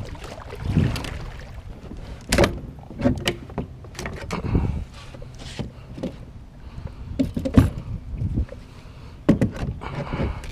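Oars working in homemade PVC oarlocks while rowing a small round boat: a knock with a splash of water at each stroke, every two to three seconds, over wind on the microphone.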